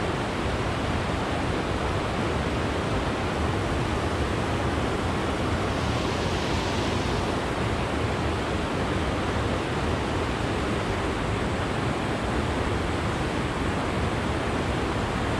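A steady, even rushing noise with no change in level.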